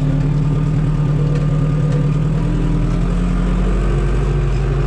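Zetor 7245 tractor's diesel engine running at a steady speed under way.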